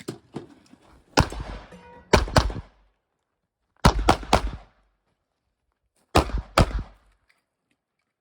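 Pistol shots fired in an IPSC stage: a single shot, then shots in quick pairs and one group of three, with pauses of about one to two seconds between strings. Each shot rings out briefly.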